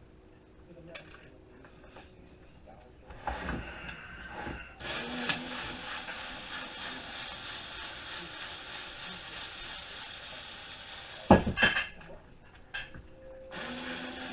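A power screwdriver runs steadily for about six seconds, backing out the screws that hold the cooling fans inside a network switch. About eleven seconds in there is a short, loud clatter of metal parts.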